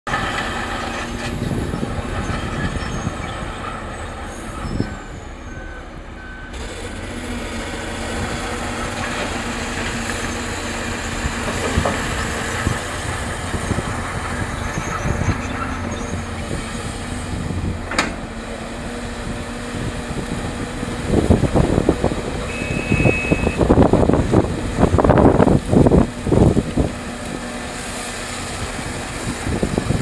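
Heavy diesel engine of a Hitachi Zaxis 650 LC excavator running steadily as it digs gravel, with a reversing alarm beeping a few seconds in. From about twenty seconds in, loud bursts of gravel pouring and rattling as the bucket tips its load into an articulated dump truck.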